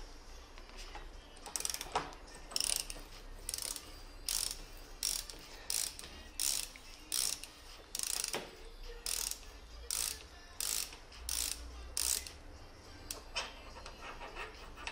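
Ratchet wrench clicking in short back-strokes, about one and a half a second, stopping some three seconds before the end, as it turns the steering stem nut of a motorcycle through a slotted nut socket.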